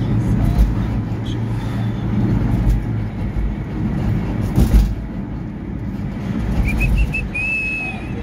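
Road and engine noise inside a moving Fiat car's cabin, a steady low rumble from the bridge's rough pavement, with a thump about four and a half seconds in. Near the end come a few short high chirps and a brief high tone.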